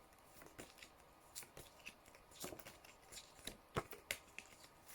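Near silence, with faint, scattered clicks and rustles of small handling noises.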